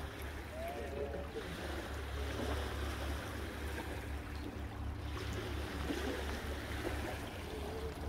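Small lake waves lapping on a pebble shore, under a steady low rumble of wind on the microphone.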